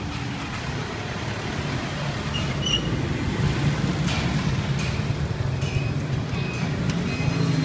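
Road traffic: vehicle engines running steadily and growing a little louder, with a short click about four seconds in.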